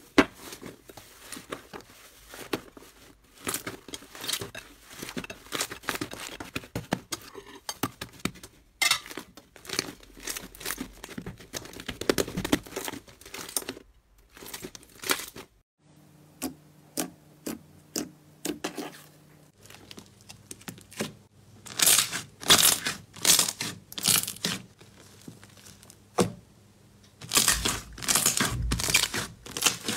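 Hands stretching, squishing and pressing slime: irregular sticky crackles and pops, with crinkling from metal foil flakes mixed into the slime in the first part. The pops come in louder clusters in the second half.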